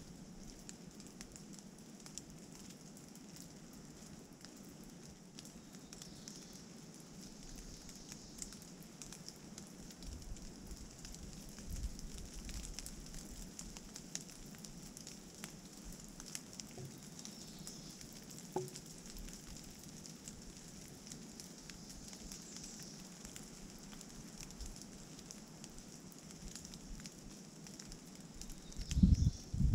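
Rain falling in a forest, a steady hiss with scattered drops pattering and dripping on leaves and gravel. Near the end, a gust of wind buffets the microphone with a low rumble.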